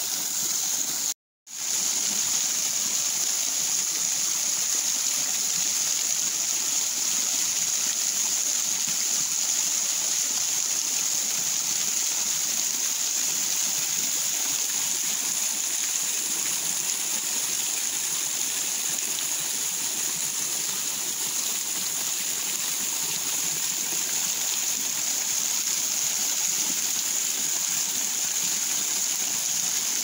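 Steady rushing and splashing of a partly frozen waterfall, the water still falling through and behind its ice curtains into the pool below. The sound cuts out completely for a moment about a second in.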